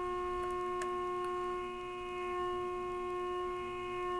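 Steady audio test tone from the RCA 262 radio's speaker: the signal generator's modulation tone passing through the set. Its loudness dips and swells a little as an IF transformer is peaked for the loudest tone, with a few faint clicks.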